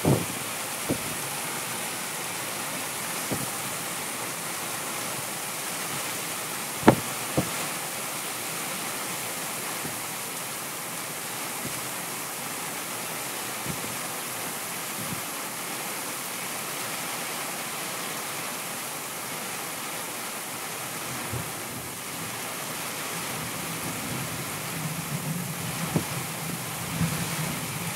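Steady hiss of heavy rain, with sharp knocks scattered through it, the loudest about seven seconds in.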